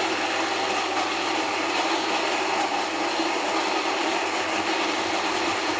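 Rancilio Rocky coffee grinder running steadily, its burrs grinding beans at an espresso setting into a portafilter: an even grinding noise with a low hum under it.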